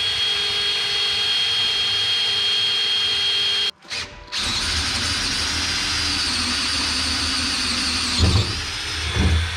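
Cordless drill running steadily as it drills out a hole in a metal planter row-unit part. It stops briefly a little under four seconds in, then starts again with a higher whine. A couple of low knocks come near the end.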